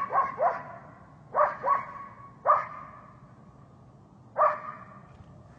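German Shepherd dog barking: about seven loud barks in quick clusters of two and three, the last alone about four and a half seconds in, each trailing off in an echo.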